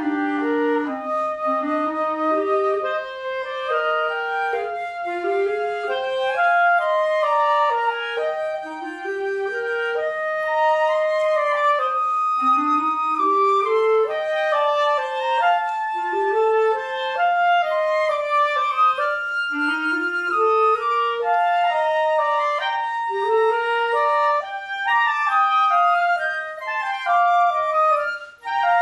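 Flute and clarinet playing a classical duet: rising runs repeat about every two seconds in the lower part beneath a held and moving melody above, with a brief break just before the end.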